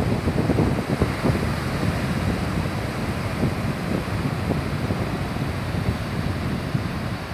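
Wind buffeting the microphone in uneven gusts over the steady wash of small waves breaking on a sandy beach.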